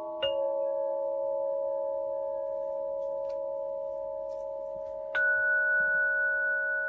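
Slow meditation music of struck bell-like tones that ring on and overlap. A new tone is struck about a quarter second in, and a higher one about five seconds in.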